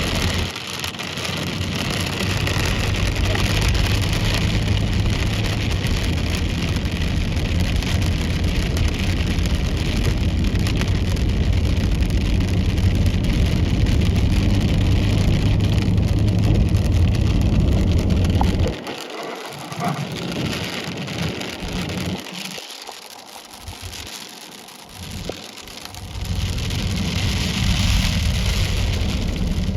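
Hail and heavy rain pelting a car, a dense steady hiss over a low rumble. The low rumble drops away for several seconds past the middle, then returns.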